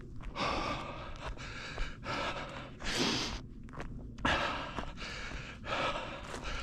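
A runner breathing hard and fast, a noisy breath about once a second.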